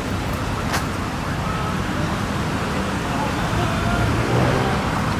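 Steady city road traffic, a low rumble of engines, with people talking in the background.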